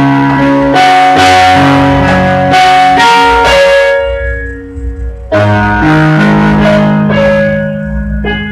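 Electronic keyboard played with both hands on the black keys only, a pentatonic melody over low bass notes, each note starting sharply and dying away. About four seconds in the playing thins to a single fading note, and a little after five seconds it picks up again with low bass notes.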